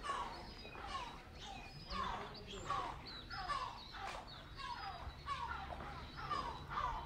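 Birds calling over and over: short falling calls, about two a second, with a few higher chirps among them.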